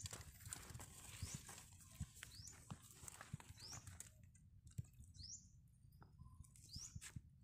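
A bird repeating a short, high, upward-sweeping chirp roughly every second and a half, faint, with scattered light clicks and knocks and a low rumble underneath.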